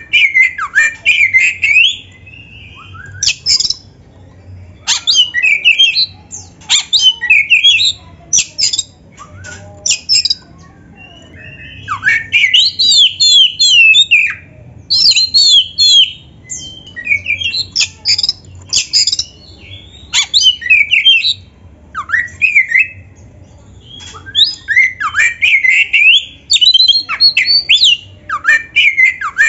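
Oriental magpie-robin (kacer) singing in repeated bursts of rapid, varied sweeping notes a second or two long, with short pauses between them. This is its aggressive 'narung' fighting-mode song.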